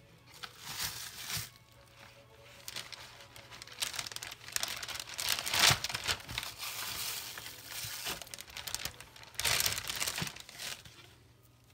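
Plastic meat-tray wrap and a zip-top bag crinkling in irregular bursts as raw short ribs are handled.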